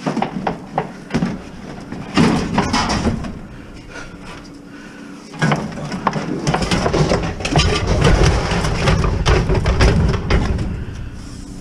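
Heavy steel scrap being shifted and loaded: a run of knocks and clanks, then about six seconds of loud scraping and rumbling.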